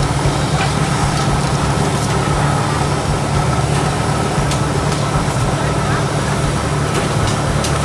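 A steady low machine hum, with people talking in the background and a few light clicks.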